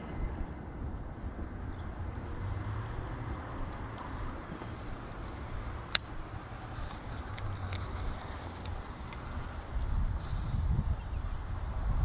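Insects trilling steadily in a constant high-pitched chorus over a low outdoor rumble, with one sharp click about halfway through.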